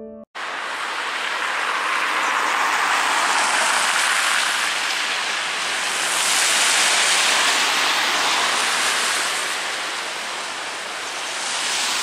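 Road traffic noise: a steady rushing of passing vehicles that swells twice, with no low rumble.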